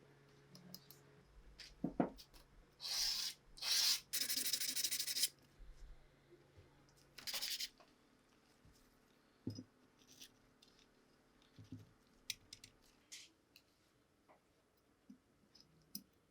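Hand work on small metal pistol parts: a knock, then a few short hissing rubbing or scrubbing strokes, followed by scattered light clicks and taps.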